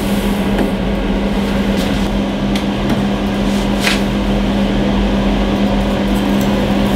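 Steady machine hum with a hiss, like a running fan or extractor, with a few faint clicks near the middle.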